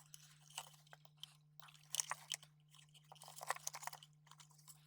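Hands handling the opened plastic casing and insides of a wireless mic belt pack: irregular small clicks and crackles, busiest about two seconds in and again around three and a half seconds. A faint steady hum runs underneath.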